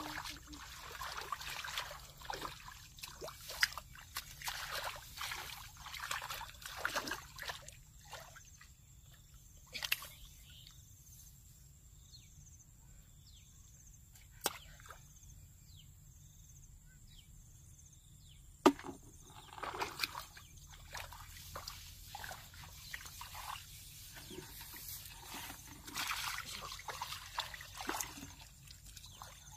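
Shallow water splashing and sloshing in irregular bursts, with a quieter stretch in the middle broken by a few sharp clicks.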